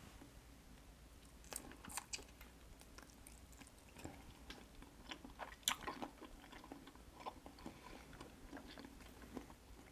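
Close-miked eating: faint chewing and wet mouth sounds with scattered sharp crunches, the loudest a little after halfway.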